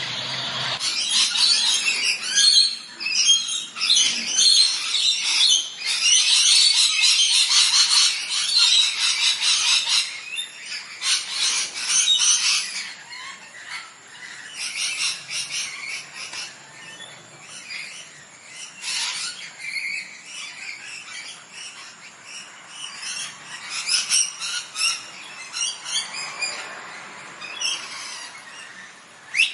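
Parrot squawking and chattering in rapid, overlapping calls for about the first twelve seconds, then sparser, quieter calls with short gaps.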